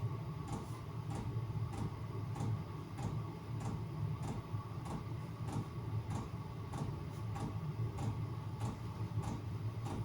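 Chinese diesel air heater running: its fuel dosing pump ticks evenly about every 0.6 seconds over the steady hum of the heater's blower.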